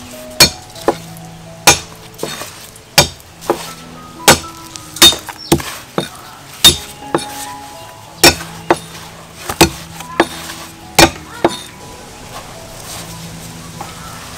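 Sharp, irregular knocks and clinks, roughly one a second and stopping a few seconds before the end, over soft background music.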